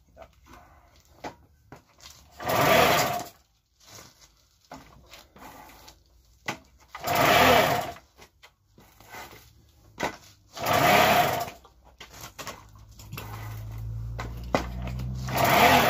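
Four attempts to turn over the 1994 Alkro ByLight moped's small engine, each a loud whirring rasp of about a second, a few seconds apart, with light clicks and knocks between. The engine does not catch, after a new splice in its HT lead. A low steady hum comes in near the end.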